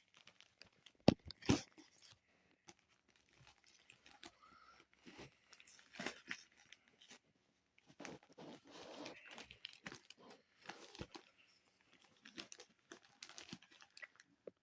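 A mailed package being opened by hand: intermittent tearing and crinkling of the packaging, with two sharp knocks a little over a second in.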